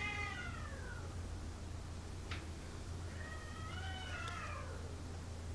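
Cats yowling at each other in a standoff: a drawn-out falling yowl at the start, then a longer one about three seconds in that rises and falls. A single sharp click about two seconds in.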